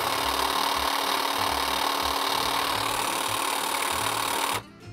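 Cordless battery-powered hedge trimmer running with no load, its blades going back and forth very fast. A steady mechanical whir with a constant hum that starts suddenly and cuts off sharply near the end.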